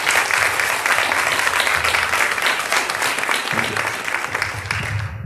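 Audience applauding, many hands clapping together; the clapping cuts off suddenly near the end.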